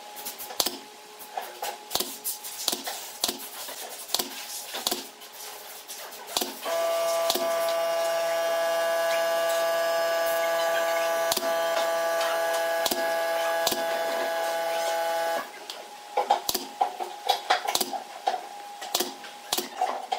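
Sharp clicks and taps from a plastic edge-banding strip being bent and pressed around the rim of a round wooden tabletop. About seven seconds in, a handheld power tool's motor starts and runs at one steady pitch for about nine seconds, then cuts off, and the clicking and tapping resumes.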